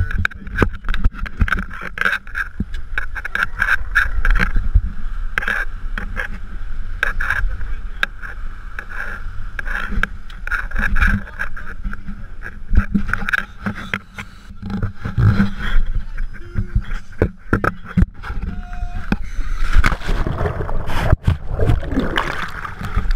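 Twin outboard motors of a rigid inflatable dive boat running, muffled, with wind and repeated knocks and scrapes of handling on the camera. About twenty seconds in, this gives way to a dense rush of splashing and bubbling as the camera goes under water.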